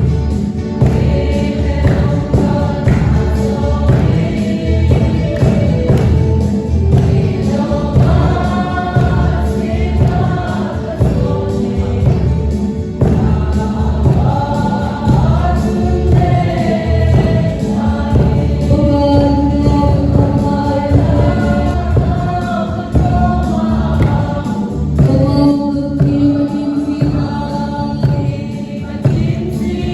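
Choral gospel-style singing with music and a strong steady beat in the low end.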